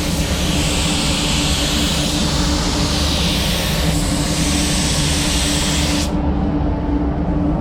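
Paint spray gun hissing as clear coat is sprayed over a steady ventilation hum and rumble. The hiss cuts out for about a second and a half near the end, then starts again.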